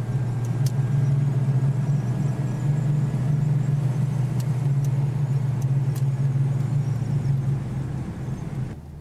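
Car engine and road noise heard from inside the cabin while driving at steady speed: a loud, even low drone. It drops off abruptly just before the end.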